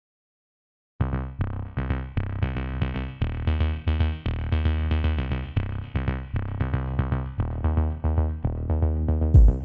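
Silence for about a second, then electronic background music begins: a drum-machine beat with heavy bass and synthesizer chords. A louder bass hit comes near the end.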